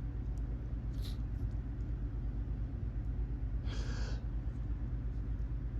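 A person breathing and sniffing between sneezes, with a brief breath about a second in and a longer, stronger one around four seconds in. Under it runs a steady low hum.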